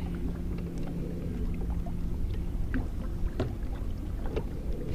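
Fishing boat sitting on open water: a steady low rumble of wind and water against the hull, a faint steady hum underneath, and a few scattered light clicks and taps.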